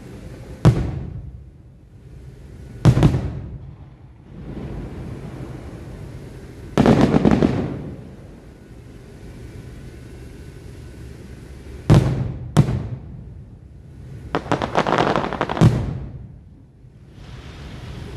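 Aerial firework shells bursting in a show: single sharp booms about a second in and again a couple of seconds later, a longer crackling run of bursts near the middle, two booms in quick succession, then a cluster of bursts near the end, each trailing off in a rumble.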